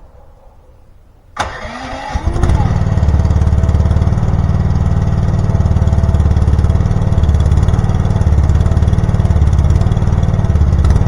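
Champion 37-ton log splitter's gas engine starting cold with the choke on. It fires about a second and a half in, rises quickly in speed, and settles into a steady run as it warms up.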